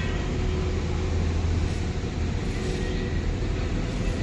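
Steady low rumble with a constant background hiss, with no distinct events.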